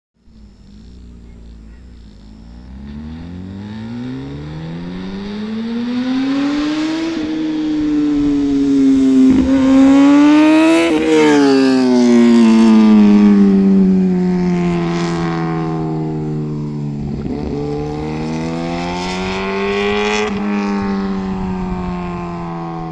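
Kawasaki Ninja ZX-10R inline-four engine through an SC-Project aftermarket exhaust, its revs climbing through several gears with a short dip at each shift. It is loudest about halfway, then the pitch falls away, climbs once more and settles lower near the end.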